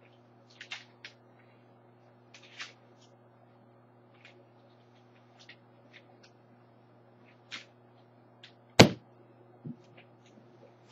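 Someone handling objects by hand: scattered light clicks and rustles, one sharp knock about nine seconds in and a softer thud just after, over a steady low hum.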